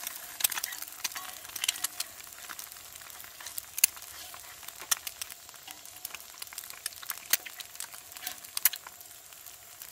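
Eggs frying in grease on a cast-iron griddle: a steady sizzle dotted with frequent sharp pops and crackles, with a metal spatula scraping and tapping on the griddle as the eggs are worked.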